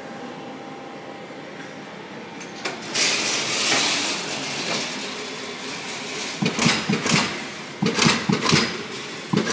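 Amada punch press at work on sheet steel: a steady machine hum, a rush of noise about three seconds in, then a run of quick sharp punch strokes, two to four a second, from about six and a half seconds.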